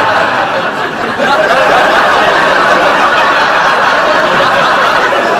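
Sitcom studio audience laughing, loud and sustained, with a brief dip about a second in before it swells again.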